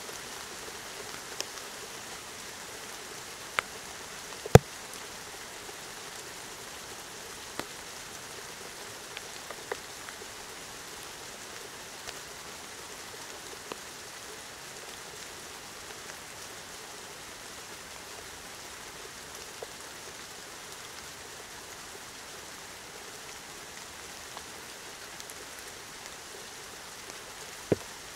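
Steady rain falling, with scattered sharp taps of drops landing close by; the loudest tap comes about four and a half seconds in.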